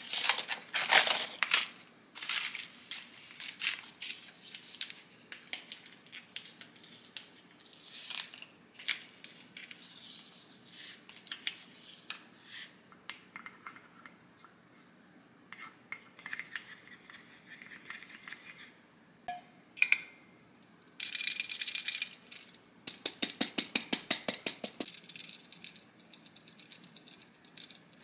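Paper stick packets of instant espresso powder crinkling and tearing open one after another as the powder is shaken into a small ceramic dish, with light clicks. About three-quarters through, a stainless-steel flour sieve is shaken over a glass bowl, a loud fast rattle.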